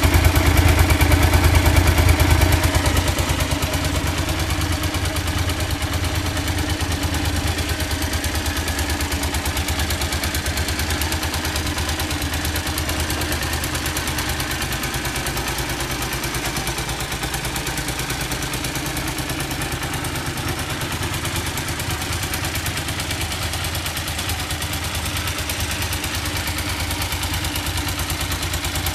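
Yamaha TDM900 (RN08) parallel-twin engine idling steadily through its exhaust muffler, a little louder for the first few seconds.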